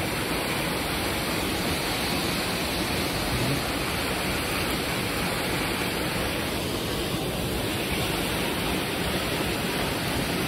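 Steady rushing of water pouring from a dam's discharge outlet, an even noise without letup.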